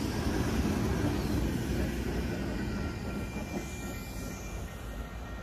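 MBTA wash train rolling past: steel wheels running over the rails and the rear locomotive's diesel engine, fading steadily as the train moves away. Faint high ringing tones come in near the end.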